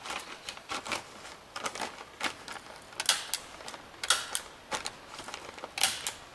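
Irregular sharp knocks and clicks, a few a second, from wooden poles being handled and worked on a log roof frame.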